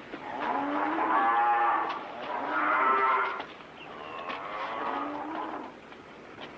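Cattle lowing: three long, drawn-out moos one after another, each rising and bending slightly in pitch.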